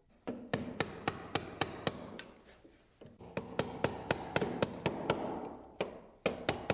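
Wood chisel struck with a hammer in quick light blows, about five a second, in two runs with a short pause near the middle. The chisel is paring wood off a stair carriage to square it where the tread-and-riser unit was binding.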